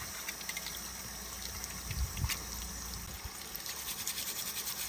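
Water sloshing and trickling in a steel wok as live crabs are lifted and turned in it, with scattered light clicks of shell on metal and one sharper click about two seconds in.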